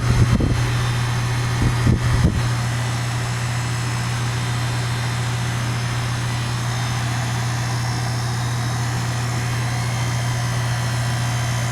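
Goodman two-ton heat pump outdoor unit running in cool mode: a steady compressor hum with the condenser fan blowing. A couple of brief low rumbles come in the first two seconds.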